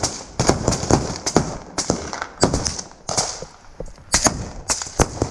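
Running footsteps on rubble-strewn ground, heard close-up from the runner, with a sharp footfall about every third of a second.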